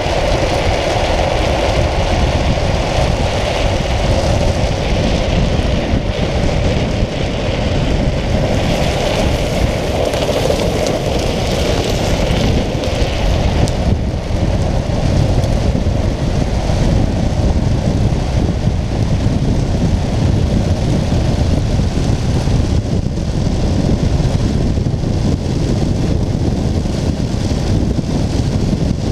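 Steady wind rushing over a handlebar-mounted camera's microphone, mixed with wheels rolling on asphalt, as a speed trike coasts downhill at speed. A humming tone runs under the noise for about the first half, then fades.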